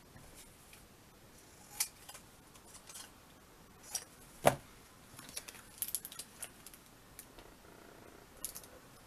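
Scattered light clicks and taps of craft supplies and card being handled on a desk, the sharpest about four and a half seconds in, with a quick run of small clicks a second later.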